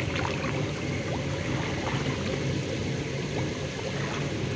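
Steady bubbling and churning of water from hot tub jets, with a few small splashes.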